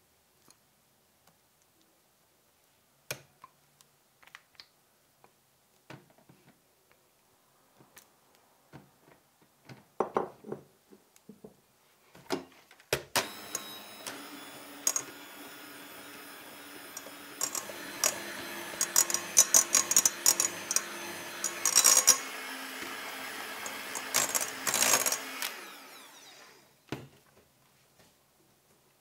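Electric hand mixer with twin wire beaters whipping caramel into whipped cream in a glass bowl. It starts suddenly a little under halfway in, runs steadily for about thirteen seconds, then winds down. Before it there are scattered clicks and knocks of a spatula against the bowl.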